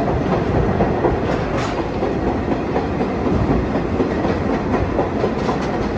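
Subway train running along the track, heard from inside the car: a steady, loud rumble of wheels and car body with some clickety-clack from the rail joints.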